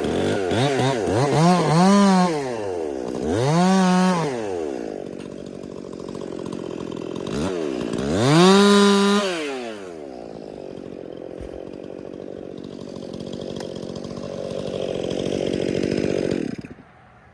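Stihl MS 261 two-stroke chainsaw revving up and dropping back three times, then running steadier and lower, and cutting off suddenly near the end.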